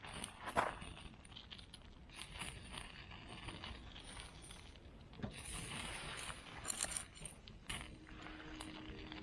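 Scattered light clicks and metallic clinks with a faint crackle, from cooking gear handled over a campfire.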